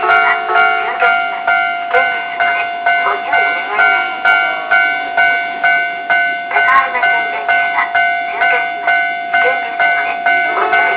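Railway level-crossing alarm ringing steadily, about two strikes a second over a constant high tone.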